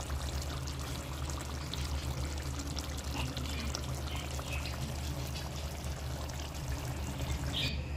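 Chicken karhai curry bubbling and sizzling in its oil in a pot over high heat, a dense crackle of small pops over a steady low hum. The crackle cuts off just before the end.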